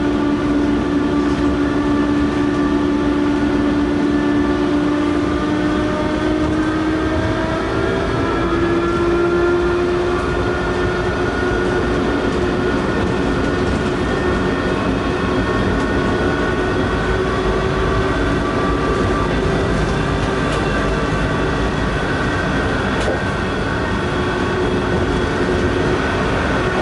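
Taipei Metro Matra (VAL 256) rubber-tyred train running, with a stack of whining traction-drive tones that climb slightly in pitch, then hold steady over the rolling noise. This whine is the abnormal inverter noise the recording was made to capture.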